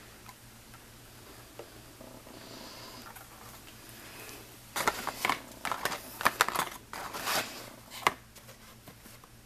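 Quiet room tone, then about five seconds in a run of irregular clicks, taps and rustles lasting about three seconds: small cosmetic products and their packaging being handled close to the microphone.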